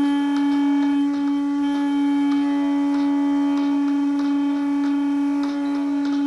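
One long, steady, loud musical note held without a break, like a drone or a wind instrument, with faint short clicks scattered behind it.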